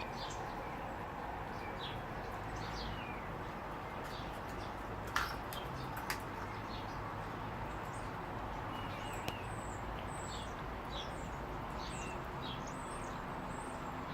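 Small birds chirping and calling, many short separate notes, over a steady low background rumble. There are a few sharp knocks, the loudest about five seconds in, another about a second later and a faint one near nine seconds.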